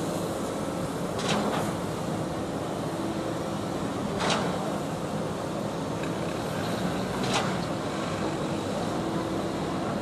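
Truck-mounted concrete pump running steadily during a pour, with a short, sharp clack-and-hiss about every three seconds: the pump's regular stroke cycle.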